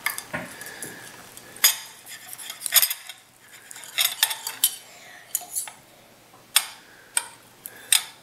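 Knife and fork clinking and scraping against a plate while cutting up a cooked dove, in irregular sharp clicks about once a second.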